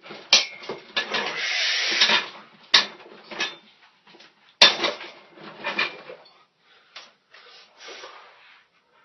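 Forced, straining breaths from a man under a heavily loaded barbell, with three sharp knocks as the bar and plates shift; the bursts die down near the end.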